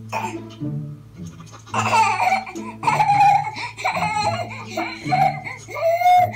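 A baby squealing and laughing in repeated high-pitched bursts, starting about two seconds in, over a steady low hum.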